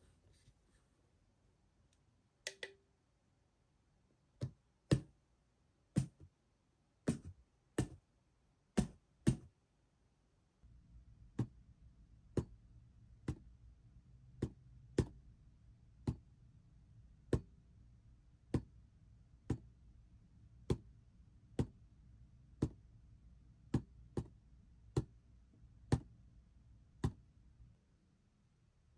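A series of sharp clicks: irregular at first, then, once a low steady hum comes in, about one a second.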